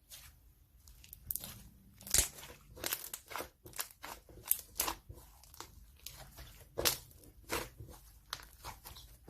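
Irregular crinkling and crunching of something being handled by hand, with sharp crackles a few times a second, the loudest about two seconds in.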